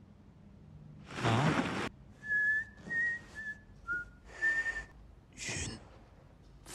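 A person whistling five short, high notes in a brief broken phrase, with a loud breathy hiss about a second in and another near the end.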